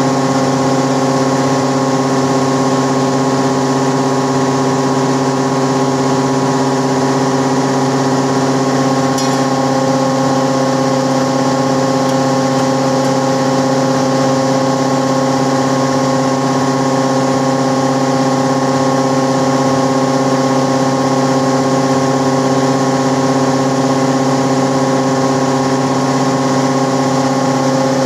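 Automatic cumin (jeera) grinding plant running: a loud, steady machine hum with several fixed tones over a constant rushing noise.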